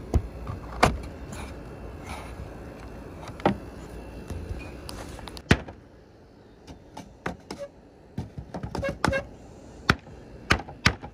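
Hammer driving nails into wooden frame pieces: irregular sharp strikes, a few loud blows early on, a quick run of lighter taps about two-thirds through, and three more solid blows near the end.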